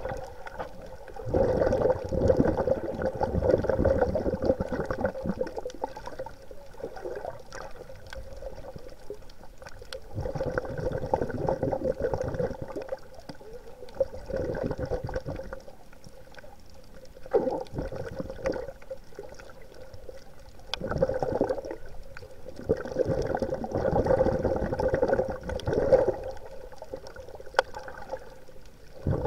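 Water bubbling and gurgling in bursts a few seconds apart, with quieter stretches between them.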